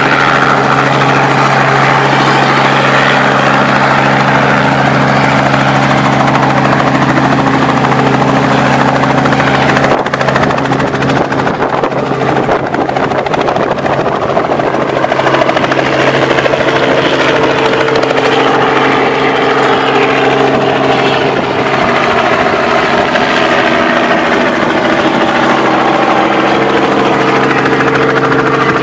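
Robinson R44 Raven II helicopter in a low hover and hover-taxi, its two-blade main rotor and six-cylinder Lycoming IO-540 piston engine running steadily. About ten seconds in the deep even hum loosens into a rougher, more spread sound, and a higher steady tone joins from about sixteen seconds in.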